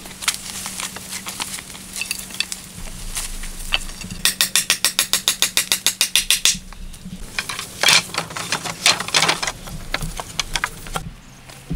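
Wooden knocks, clicks and scrapes of a person climbing a tree on lashed wooden crossbars and a pole ladder. About four seconds in there is a fast, even run of clicks, about eight a second, lasting a couple of seconds.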